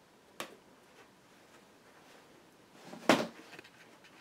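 Small cardstock door of a handmade paper windmill being handled and shut: a light click shortly after the start, then a sharper tap about three seconds in as it closes.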